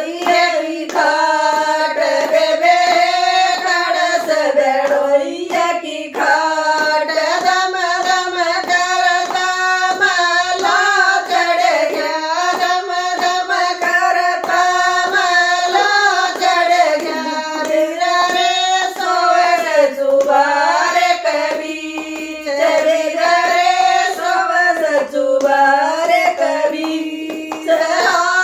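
Women singing a Haryanvi jakdi folk song together in one melody line, keeping time with steady hand-clapping and no instruments.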